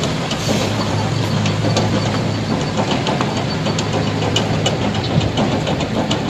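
A steady low mechanical hum with scattered light clicks.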